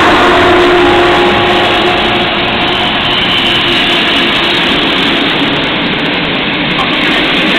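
Passenger coaches of a train hauled by an EU07 electric locomotive rolling past alongside the platform: a steady, loud rumble and clatter of wheels on rails. A few faint tones fade out in the first couple of seconds.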